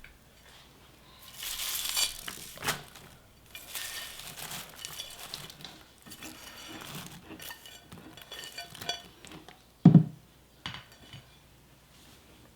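Kitchen dishes and utensils clinking and scraping as food is worked in a bowl, with one loud dull thump near the end.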